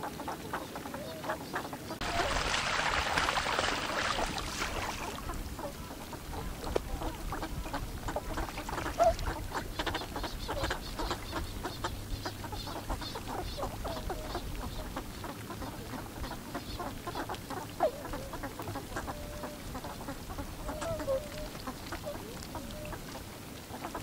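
Northern pintails foraging on a gravel shore: many small clicks and rattles of bills working through pebbles and dabbling at the water's edge, with a few short duck calls here and there. A louder rush of noise starts about two seconds in and lasts about three seconds.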